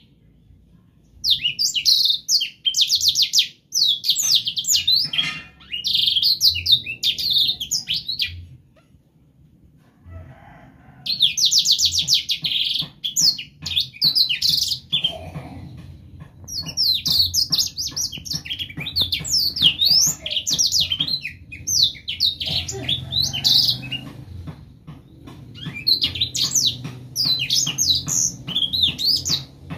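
Young black-throated canary (blackthroat) singing in fast, high twittering phrases, broken by short pauses and one longer lull about eight seconds in. A run of short sharp ticks comes through in the second half.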